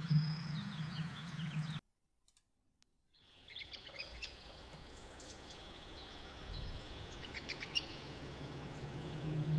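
AI-generated rainforest ambience of bird chirps and birdsong over a steady background, with no rain in it. The first generated clip stops about two seconds in, and after a second of silence a second clip starts with more chirps.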